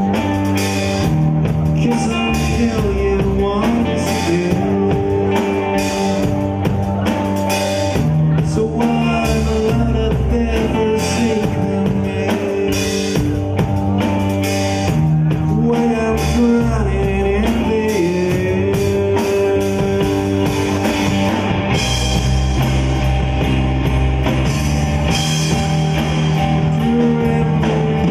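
Rock trio playing: electric guitar over bass guitar and drum kit, the guitar holding long notes while the drums keep up a steady beat.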